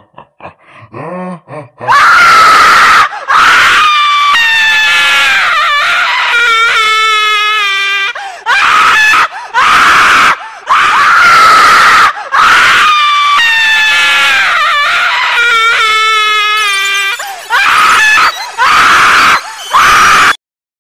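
Very loud, shrill screaming in long wavering stretches with short breaks, starting about two seconds in after a few faint whimpering sounds; the same scream pattern comes round twice, and it cuts off abruptly near the end.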